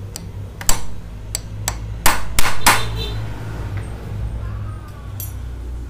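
Hammer driving a steel punch against a motorcycle steering stem's upper lock nut to turn it loose counterclockwise: about seven sharp metal-on-metal taps within the first three seconds, then no more strikes. A steady low hum runs underneath.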